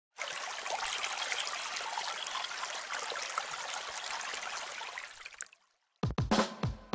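Trickling, splashing water sound effect that fades out after about five seconds, followed by a short silence. Music begins about six seconds in with a few sharp notes.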